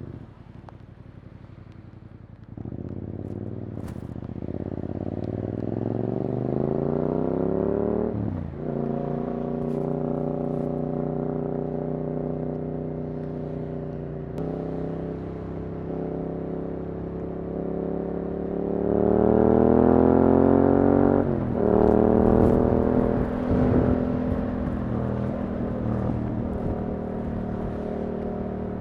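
Yamaha R7's 689 cc parallel-twin engine breathing through an Akrapovič exhaust line, accelerating through the gears. The pitch climbs, drops at an upshift about eight seconds in, holds steady, climbs again and drops at a second shift near twenty-one seconds, with a few crackles just after.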